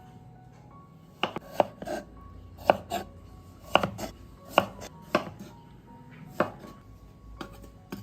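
Knife chopping food on a cutting board: about a dozen sharp, irregularly spaced strikes, starting about a second in.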